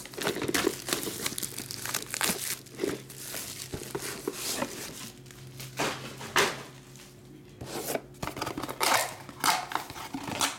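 Plastic wrapping crinkling and tearing as trading-card boxes are unwrapped and unpacked. The rustling is irregular and comes in fits, with several louder bursts.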